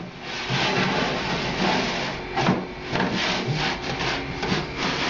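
Wooden cabinet back panel scraping and rubbing as it is slid down into the dado grooves, in uneven strokes.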